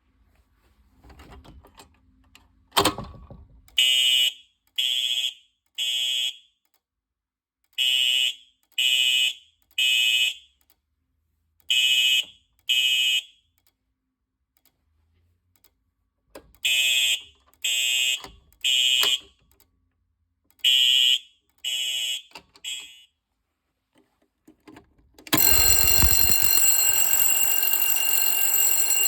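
Fire alarm sounding during a routine test. After a click about three seconds in, it beeps in groups of three short high tones a second apart, repeating every four seconds: the temporal-three evacuation pattern. From about 25 seconds in, a louder continuous ringing alarm takes over.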